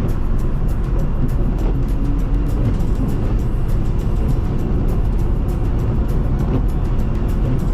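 Road noise heard from inside a moving car: a steady low rumble of tyres and engine, with a fast patter of small ticks from ice pellets hitting the car.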